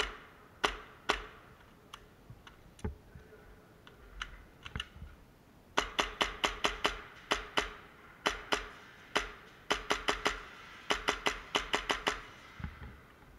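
Airsoft guns firing in close quarters: a few single shots, then quick strings of shots, about five a second, from about six to twelve seconds in.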